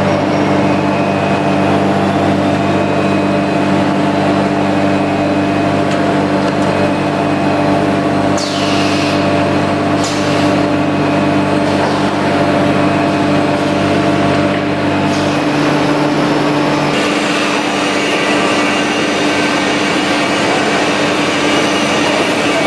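CNC nesting router running with a steady machine hum. A high whine falls in pitch about eight seconds in, and the lower hum tones drop out around two thirds of the way through.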